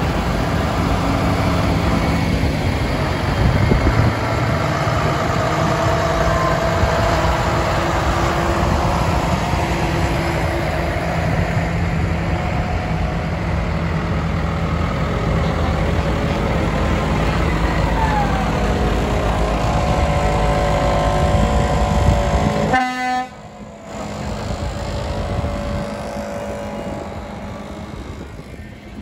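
Diesel engines of large farm tractors running as they drive past one after another, with horns tooting. The sound drops out suddenly for about a second near the end.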